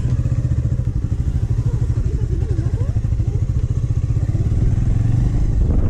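Motorcycle engine running as the bike rides slowly along, a steady rapid pulsing that grows a little louder near the end.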